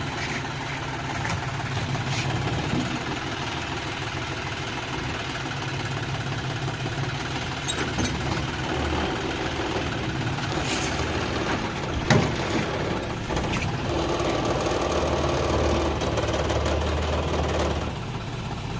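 John Deere tractor's diesel engine idling steadily, with scattered metal knocks and clanks from the rear hitch being worked by hand; the loudest knock comes about twelve seconds in. Near the end the engine note rises for a few seconds, then drops back.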